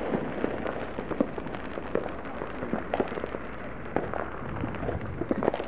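Distant consumer fireworks and firecrackers going off all over a town: a continuous scatter of small bangs and crackles overlapping one another, with a faint falling whistle about two seconds in.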